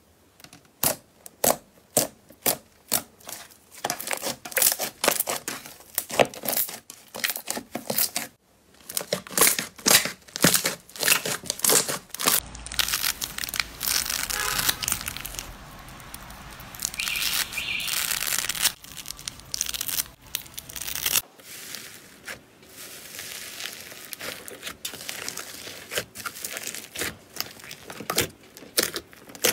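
A string of slime ASMR handling sounds. First, crisp clicks and pops about twice a second as a domed slime is pressed. In the middle comes a denser crunching as scissors cut through a sponge, and in the last third softer crackling and tearing as thick slime with foam beads is pulled apart in a plastic tub.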